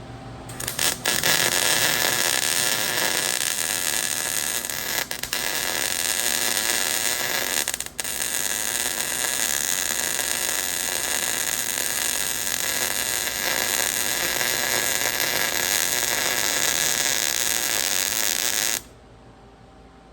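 Wire-feed welder arc crackling steadily as a bead is laid, with a few brief breaks where the arc drops, then cutting off suddenly near the end.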